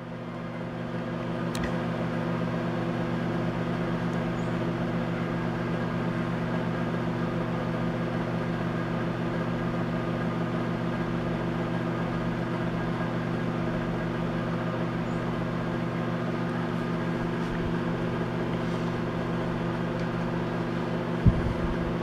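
Dako microwave oven running a heating cycle, a steady hum from its high-voltage transformer, magnetron, fan and turntable. The oven is working normally again after the repair of its high-voltage transformer winding. A single sharp click comes near the end.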